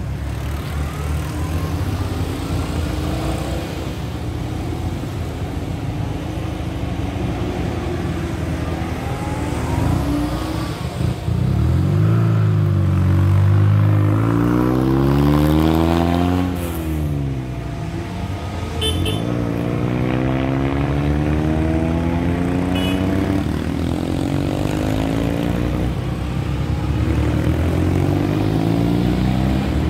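A line of cars, several of them small vintage cars, driving past one after another and pulling away through a junction, their engine notes rising and falling as each one passes. The loudest pass comes about 12 to 16 seconds in.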